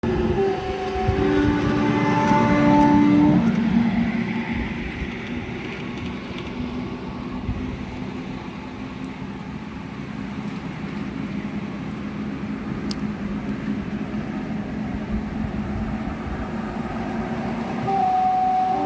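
Miniature ride-on railway locomotive running along the track, its two-tone horn sounding for the first few seconds and again near the end, with a steady rumble of the train running between.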